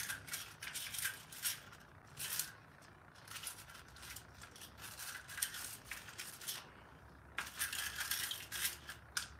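Brush scrubbing a chainsaw's chain brake side cover, irregular bursts of scratchy strokes, clearing packed sawdust and grime that keeps the chain brake from engaging properly.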